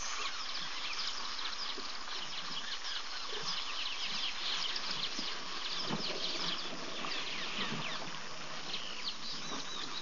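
A dense chorus of many birds, short high chirps and twitters overlapping without a break. A few short low sounds come through about six seconds in and again a second or two later.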